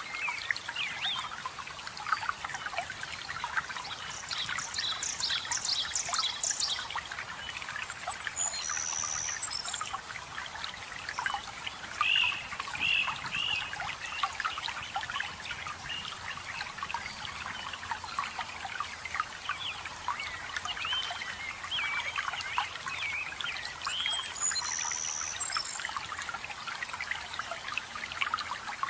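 Small waterfall splashing and trickling steadily, with forest birds calling over it: a fast high trill, a few chirps, and a short high whistle heard twice.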